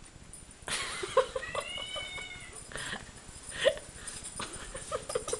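Kitten meowing once, a drawn-out call of about a second, about a second and a half in. Scattered sharp knocks and taps come before and after it as the kitten plays.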